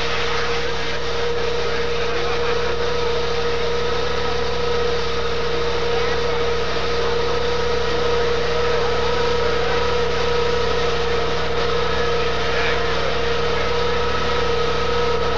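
Steady mechanical hum with a constant whine, like a small engine running without change, over a noisy background.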